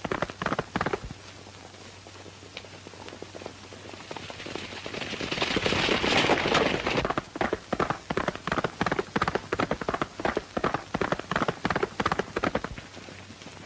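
Horses galloping: rapid hoofbeats that swell into a louder rush of several horses passing about halfway through, then settle into one horse's quick, evenly spaced hoofbeats that fade near the end.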